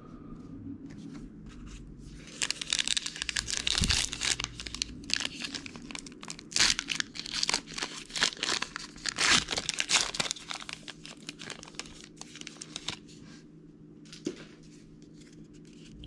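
A trading card pack wrapper being torn open and crinkled in the hands. The crackling starts about two and a half seconds in, is loudest through the middle, and dies away by about thirteen seconds, with a soft thud about four seconds in.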